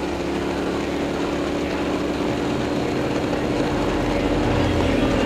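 KTM 990 SMT's V-twin engine running through a LeoVince aftermarket exhaust at a steady engine speed, getting slightly louder in the second half.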